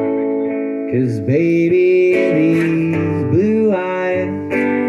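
Acoustic guitar strummed, with a man singing over it; the sung line slides in pitch around the middle.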